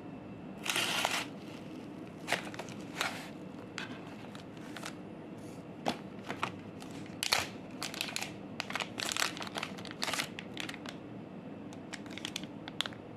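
Plastic being handled by hand: scattered crinkling rustles and sharp clicks, irregular and brief, over a faint steady hum.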